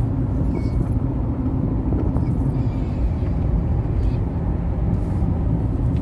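Car driving along a road, heard from inside the cabin: a steady low rumble of engine and tyre noise.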